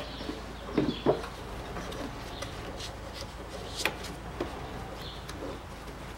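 Plastic latches on a Smart Fortwo's air filter housing being pressed and snapped shut by hand: two sharp clicks about a second in and another near four seconds, with lighter handling knocks of the plastic between.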